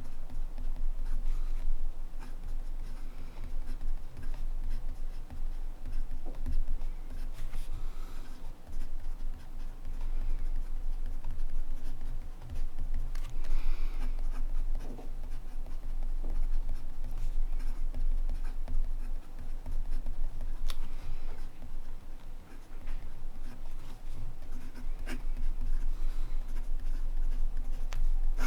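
Montblanc Meisterstück 144 fountain pen nib scratching across paper in continuous handwriting, the strokes coming and going irregularly over a low steady hum.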